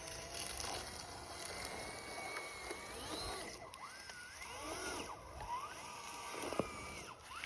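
Brushless electric motor of a 1/18-scale RC crawler whining, its pitch rising and falling again and again as the throttle is worked.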